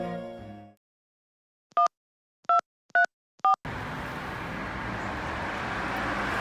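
Four short touch-tone beeps from a mobile phone keypad as a number is dialled, each beep a pair of tones at a slightly different pitch, spaced about half a second apart. Before them a violin music track fades out; after them comes a steady hiss of outdoor street noise.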